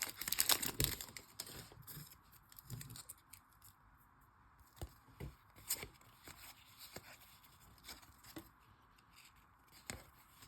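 A foil card-pack wrapper crinkles briefly at the start, then come faint, scattered clicks and soft rustles of trading cards being handled.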